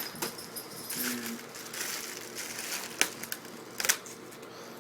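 Packaging rustling and crinkling as a belt is unwrapped and handled, with two sharp clicks about three and four seconds in.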